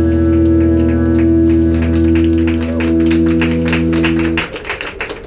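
The last chord of a rock backing track rings out as a held, distorted guitar sound, then cuts off suddenly about four and a half seconds in. A run of light, quick clicks sounds throughout.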